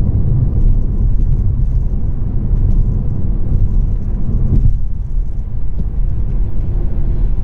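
Inside the cabin of a Volvo V40 T3 on the move: steady low road and engine rumble from the car's 2.0-litre petrol engine and tyres, easing briefly about halfway through.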